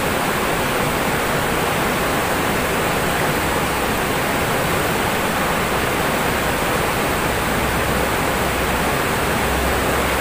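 Fast river running over rocks and rapids: a steady, loud rush of water.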